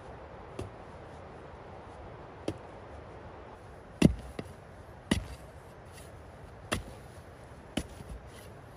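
Wooden-handled pickaxe striking grassy soil while digging a hole: about six separate blows, one to two seconds apart, the loudest about four seconds in.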